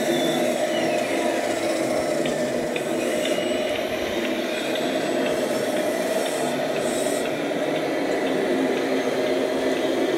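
Radio-controlled scale construction models working: a steady engine-like drone with the whir of small electric motors and servos over it, and a few faint clicks.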